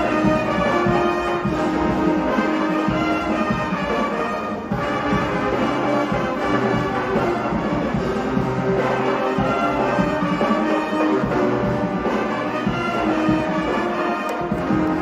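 Band music with brass to the fore, trombones and trumpets playing held notes over a dense, steady accompaniment.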